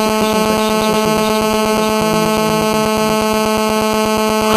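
A loud, steady buzzing tone held at one pitch, rich in overtones.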